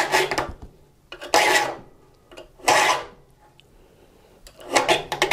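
Triangular file strokes across the teeth of a Disston D8 rip saw's steel plate, sharpening a tooth toward a point. Four separate strokes, each about half a second long, roughly a second and a half apart.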